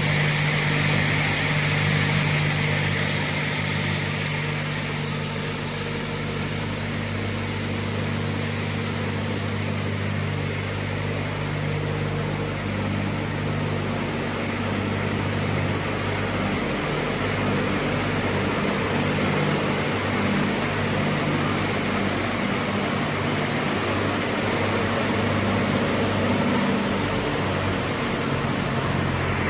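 Brodpol WP-160 shaft-type multi-rip saw running, its 55 kW main motor and arbor of 45 cm blades giving a steady loud hum over a dense whirring noise while it works timber on its crawler-track feed. A higher hissing component is strongest in the first few seconds, then eases.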